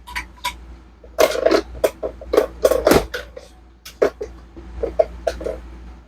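Cardboard box and packing materials being handled: a string of short knocks, taps and rustles.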